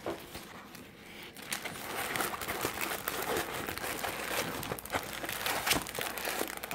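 Rolled diamond-painting canvas being unrolled and flattened by hand, the stiff canvas and its paper backing crinkling and crackling. It grows louder after about a second and a half.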